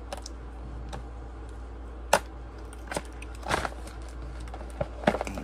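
Small package being opened by hand to get at a USB-C cable: scattered short clicks and crinkles of the packaging, the sharpest about two seconds in, with a steady low hum underneath.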